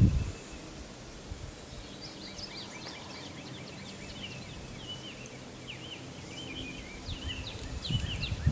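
Small birds chirping in many quick, short notes, building to a busy chorus from about two seconds in. Low muffled rumbles come at the start and again near the end, and they are the loudest parts.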